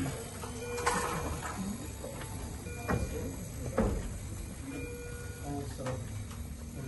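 Hospital bed being wheeled through a doorway, with a few sharp knocks and bumps about 1, 3, 4 and 6 seconds in. Short steady tones at several pitches sound now and then.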